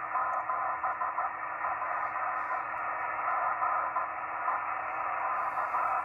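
Icom IC-735 HF transceiver's speaker playing steady receiver hiss and band static while tuned to 14.061 MHz in upper-sideband mode, the sound cut off sharply below and above the narrow voice passband.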